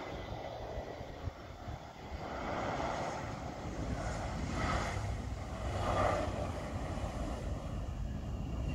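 Twin-engine jet airliner on final approach to landing, its engines a steady rushing hum at low power that swells and fades a few times. A low rumble of wind on the microphone runs underneath.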